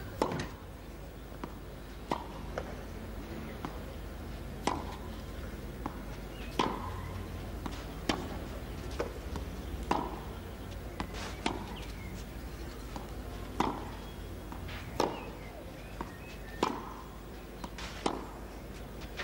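Tennis ball hit back and forth in a long baseline rally on clay: a sharp racket pop about every one and a half to two seconds, with fainter ball bounces between them, over a steady low hum.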